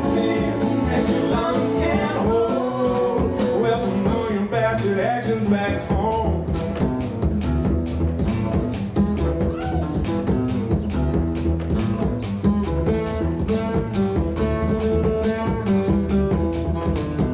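Live folk-rock duo playing acoustic guitar, upright double bass and a foot-played bass drum; a sung line trails off in the first few seconds, then the band plays on instrumentally with a steady percussive beat.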